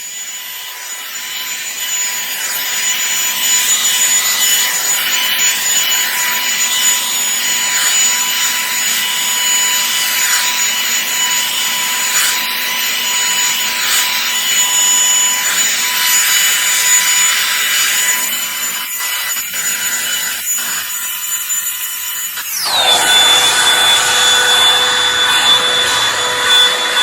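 Revlon One Step hot-air brush dryer running: a steady rush of air with a high motor whine as the round brush is worked through hair. About 23 seconds in the whine drops abruptly to a lower pitch.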